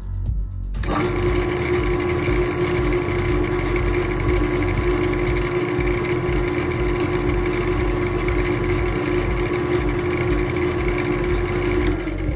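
An electric power tool's motor starts abruptly about a second in, runs steadily with a whine and a hiss, and is switched off near the end, its pitch sliding down as it spins down.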